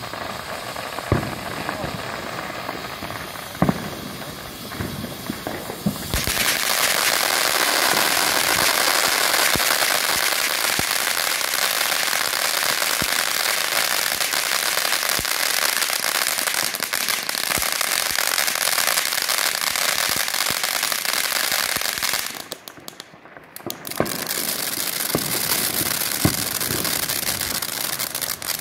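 Ground fountain firework spraying sparks: a hiss with scattered crackling pops. It turns much louder and denser about six seconds in and keeps going with a crackle of small pops. Near the end it cuts out for about two seconds, then hisses and pops again.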